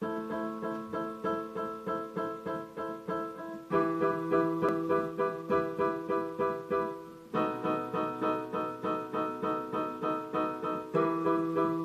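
Yamaha EOS B900 electronic keyboard played with both hands in an instrumental intro: a steady pulse of repeated chords, moving to a new chord and bass note about every three and a half seconds.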